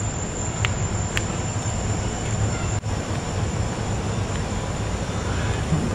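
Steady low rumble and hiss of outdoor noise, with a continuous high-pitched insect drone over it.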